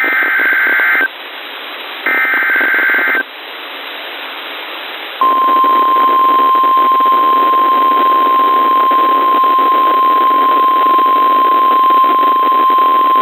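Emergency Alert System signal received on a NOAA Weather Radio over radio static. It opens with two bursts of SAME digital header data, each a buzzing screech about a second long, separated by hiss. About five seconds in, the steady 1050 Hz warning alarm tone starts and holds; it marks a new warning about to be read.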